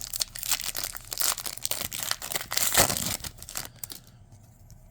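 A trading-card pack's wrapper being torn open and crinkled by hand: a dense crackling that is loudest near the middle and dies away about four seconds in.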